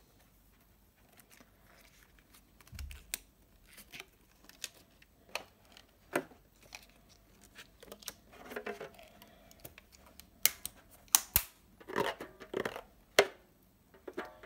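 Rubber balloon being stretched and fitted over the rim of a tin can: scattered sharp snaps and clicks of the rubber and metal with a few short squeaks, the sharpest snaps a little past the middle.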